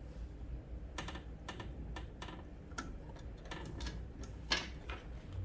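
Buttons on a pump controller's keypad being pressed: about a dozen irregular light clicks, the loudest about four and a half seconds in, over a low steady hum.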